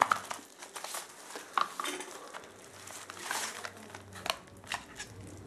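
Handling noise from a hand in a disposable plastic glove turning over a Logitech MK220 wireless keyboard: crinkling of the glove with scattered light plastic clicks and taps.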